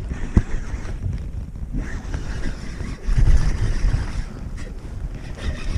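Wind rumbling on the microphone, with a sharp click about half a second in and heavier buffeting around three seconds in.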